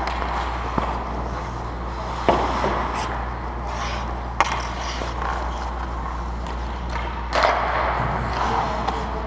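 Ice hockey skates scraping on the ice, with about five sharp clacks of sticks and pucks, the loudest about two and four and a half seconds in, and a longer scrape about seven and a half seconds in, over a steady low hum.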